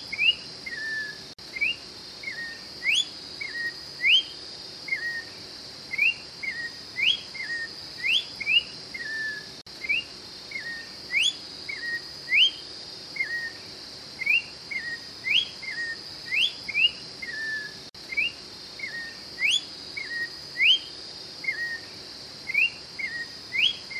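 Orange-backed troupial (Icterus croconotus) singing: a repeated phrase of a sharp rising whistle followed by lower slurred notes, about once a second, over a steady high hum.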